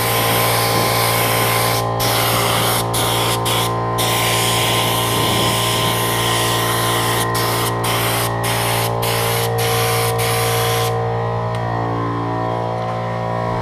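Compressed-air spray gun spraying latex paint: a loud steady hiss with many brief breaks, cutting off about eleven seconds in. Under it a small air compressor hums steadily throughout.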